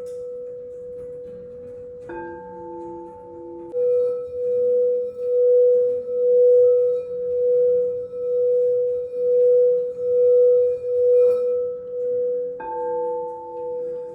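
Singing bowls ringing. A second bowl is struck about two seconds in and another near the end; from about four seconds in, the main bowl's hum swells and fades about once a second.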